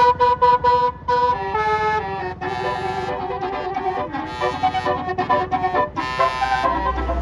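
A bus's Basuri telolet multi-tone air horn playing a tune. It opens with a quick string of short toots on one note, then runs through a series of changing notes.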